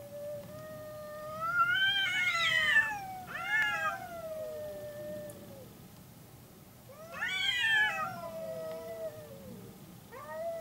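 Cats caterwauling in a face-off: long, wavering yowls that rise to a louder peak and slide back down, three in a row.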